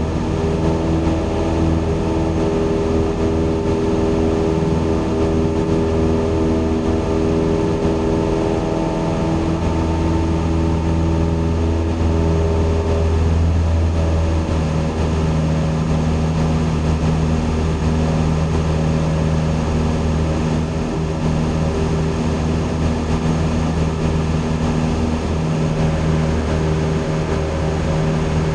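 Single-engine light aircraft's piston engine and propeller droning steadily in cruise, heard from inside the cockpit. Several steady tones sit over the noise, and their pitches shift slightly about halfway through.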